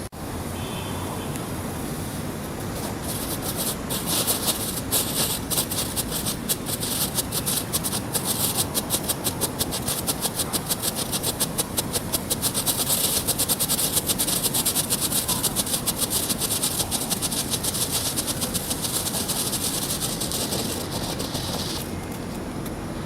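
A 'Lightning' smoke firework going off as a rapid string of sharp crackling pops over a hiss. It starts about three seconds in and stops suddenly near the end, with steady wind noise underneath.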